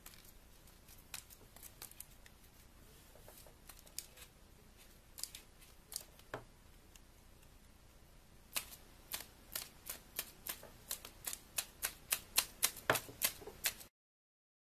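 Crisp folded-paper origami bat handled with scattered paper crinkles, then its wings worked in a run of sharp paper snaps, about three to five a second, quickening and growing louder before stopping abruptly near the end.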